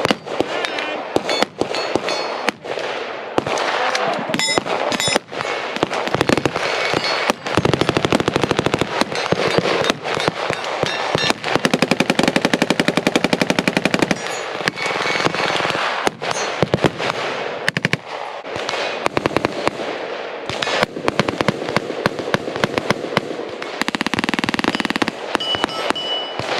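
Gunfire on a firing line: shots and bursts from several guns overlapping, including a long full-auto burst of very rapid, evenly spaced shots from about eleven to fourteen seconds in.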